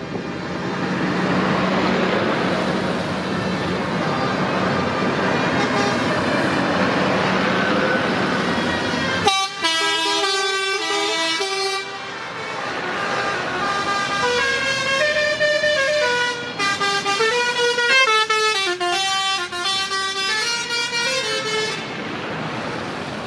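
Heavy Scania trucks drive slowly past with a steady diesel engine rumble. About nine seconds in, truck air horns blast a multi-tone chord for a couple of seconds. Later, a run of horn notes steps and glides up and down for several seconds.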